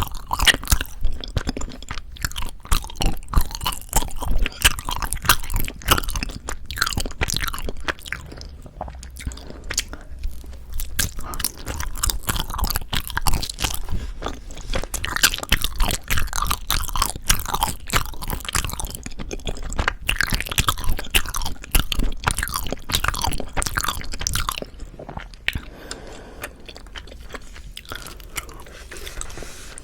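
Soft Korean rice cake (tteok) being bitten and chewed close to the microphone, with a dense run of irregular mouth clicks and smacks. The chewing grows quieter about 25 seconds in.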